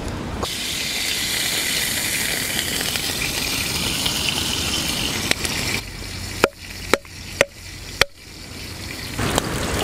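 Turkey wing sizzling in hot oil in a pan over a wood fire, a steady hiss. About six seconds in it gives way to four sharp wooden knocks about half a second apart: a driftwood log striking something on a wooden block.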